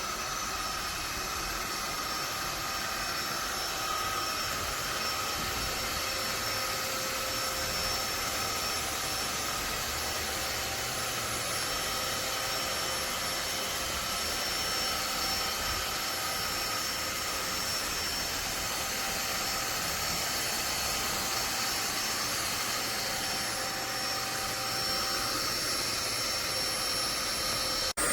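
INTETURE BP10 cordless stick vacuum running steadily: a motor whine with several held high tones over a rush of air.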